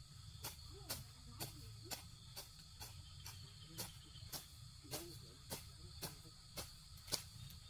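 Sharp knocks repeating evenly, about two a second, over a steady high insect chirring like crickets.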